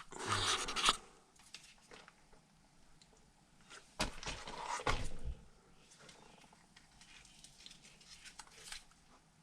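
Handling noise from a small RC rock crawler being turned over in the hands: light rubbing and scraping, with a sharp knock about four seconds in and another about a second later.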